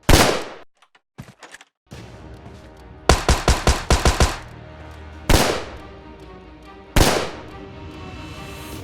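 Gunfire sound effects: a single loud shot with a ringing tail, then a rapid burst of about eight shots, then two more single shots, over background music.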